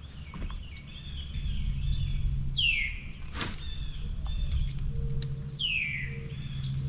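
Birds calling: two long calls that slide downward in pitch, about three seconds apart, among short high chirps, over a low steady rumble.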